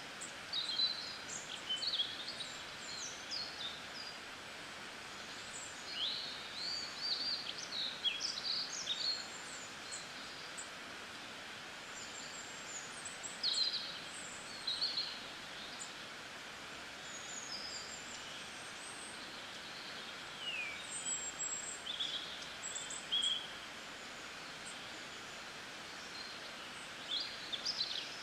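Small birds chirping and twittering in scattered bursts over a steady hiss of rain.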